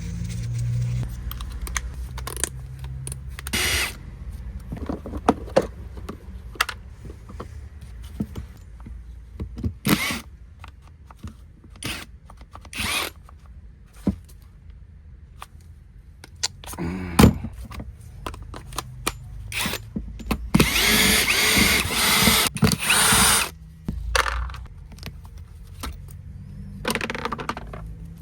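Power drill run in short bursts, the longest about three seconds near the end, among clicks and knocks of tools being handled.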